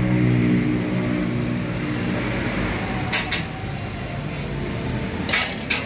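Metal fork clicking sharply against an iron griddle a few times, twice about three seconds in and twice more near the end, as martabak dough is folded and pressed over its meat filling. Under it, steady background noise and a low hum that fades over the first two seconds.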